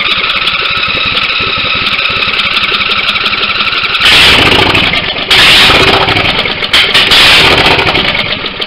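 23 hp Briggs & Stratton V-twin lawn-tractor engine cranked by its electric starter for about four seconds, then catching and running loud and rough with no exhaust fitted. This is its first start in years, and it begins to die down near the end.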